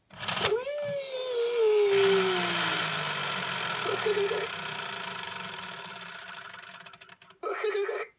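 TOMY Po Teletubby toy making its electronic sounds: a sound that slides down in pitch, then its motor whirring as it spins, the whirr fading slowly over several seconds, with a short burst of the toy's electronic voice near the end.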